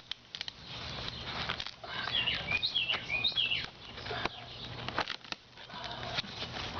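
Rustling, scraping and knocking of a cardboard box and its packaging being opened and handled by hand, with a bird chirping several times about two to three seconds in.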